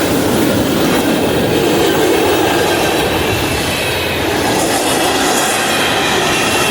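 CSX mixed-manifest freight train passing at about 42 mph: a steady, loud rumble of steel wheels running on the rails.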